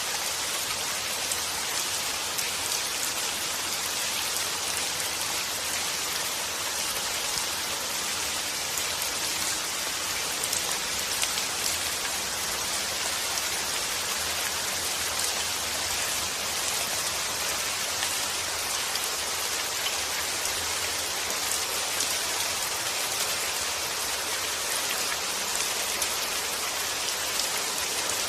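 Steady rain falling, a constant even hiss of drops with fine patter on a surface, unchanging throughout.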